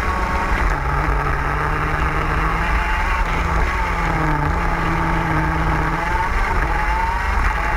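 TM K9C 125cc two-stroke KZ kart engine running at high revs on track, its pitch easing down as the kart slows for a corner and climbing again near the end as it accelerates out.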